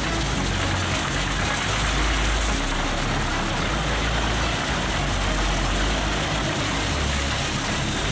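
Heavy machine engine running steadily, a low rumble that swells and eases slightly under a constant wash of mechanical noise, typical of a large wood crusher at work.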